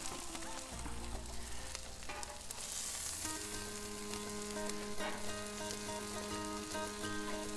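Chicken skewers sizzling in garlic butter on a hot flat-top griddle, a steady hiss with crackling spatter. Background music comes in about three seconds in and carries on under the sizzle.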